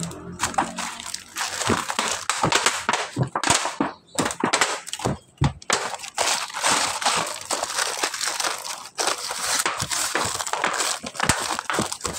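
Dense crinkling and crunching with many small sharp clicks, irregular throughout: a plastic sack being handled and dry leaves being crushed on a corrugated metal roof.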